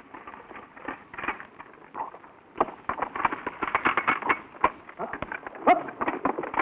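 Rapid metallic clicks and clacks from several bipod-mounted general-purpose machine guns being handled at once, their working parts cocked and snapped by hand. The clatter is sparse at first and grows dense about two and a half seconds in.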